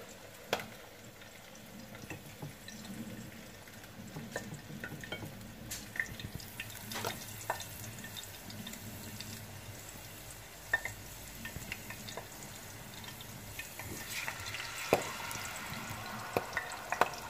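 Light taps and clicks of a bell pepper leaf being dredged in flour and dipped in batter on a plate. About fourteen seconds in, a hiss of hot oil sizzling as the battered leaf goes into the pot.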